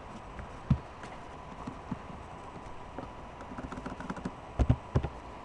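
Computer keyboard and mouse clicks as a code is typed in: an irregular run of light clicks, with louder knocks a little under a second in and a cluster near the end. A faint steady high tone hums underneath.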